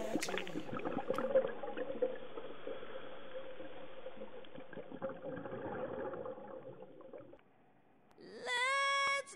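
Muffled underwater water noise with gurgling, as picked up by a camera in a dive housing, fading to near silence about seven seconds in. Near the end a loud sung note, held steady, starts a song.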